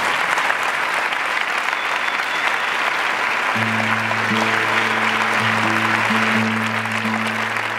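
Audience applauding steadily. About three and a half seconds in, music with low held notes starts underneath the clapping.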